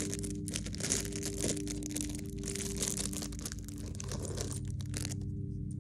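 Plastic minifigure blind-bag packaging crinkling and rustling as it is handled and torn, stopping about five seconds in.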